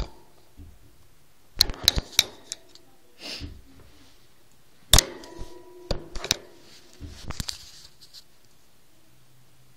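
Irregular sharp clicks, knocks and short rattles, the loudest knock about five seconds in: handling noise from a phone being moved about and knocking against things.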